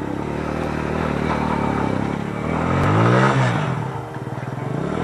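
Motorcycle engine under throttle as the bike climbs a rutted dirt track, revving up and then falling back, loudest about three seconds in.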